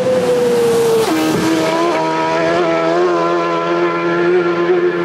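A racing motorcycle's engine running hard at high revs as it passes at full speed. Its note falls and then drops sharply about a second in as it goes by, then holds a steady high note as it carries on up the road.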